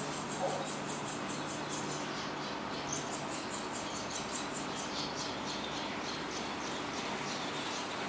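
Barn swallow nestlings, about a week old, giving a rapid series of high-pitched begging chirps as a parent feeds them at the nest. The chirps come lower and more varied from about three seconds in. A steady low hum runs underneath.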